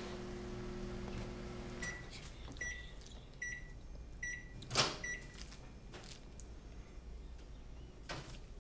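Microwave oven running with a steady hum that stops about two seconds in, followed by five short high beeps signalling the end of the heating cycle. A sharp click comes about five seconds in, with a few fainter clicks after.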